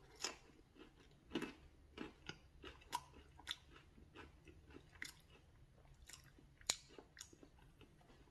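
A person chewing a bite of baked frozen pizza: quiet, irregular mouth clicks and crunches, roughly two a second.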